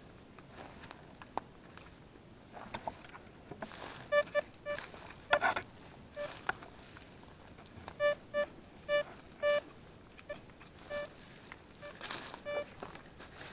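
Detech Chaser metal detector sounding target tones: repeated short beeps, all at the same pitch, in quick clusters as the coil sweeps over a metal target in the ground. Brief crunches of twigs and leaf litter underfoot come in between.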